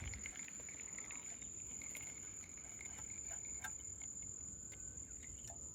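Insects, likely crickets, keeping up a steady high-pitched drone, with a few faint clicks and a sharper click near the end.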